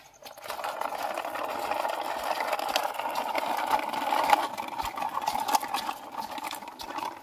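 Small plastic toy car pushed by hand along a rough, mossy wall top, its plastic wheels rolling and rattling in a steady grinding whir with small clicks.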